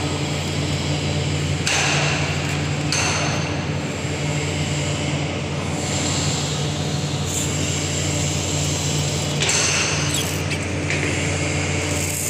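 Steady low machinery hum from the sugar mill, with bursts of hissy scraping and handling noise from hand work on the rubber conveyor belt, about two seconds in and again near ten seconds.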